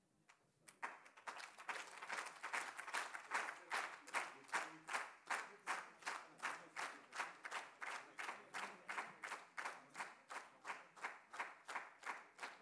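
Audience applause that starts about a second in and soon settles into rhythmic clapping in unison, about three claps a second.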